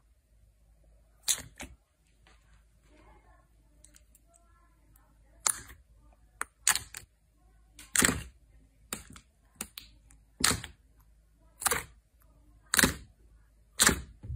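Thick glossy white slime being poked and pressed by hand, letting out sharp air pops about ten times at uneven intervals, clustered in the second half.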